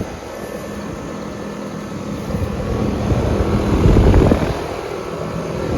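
Outdoor central air-conditioner condensing units running, a steady fan and compressor whoosh, with a low rumble swelling about four seconds in.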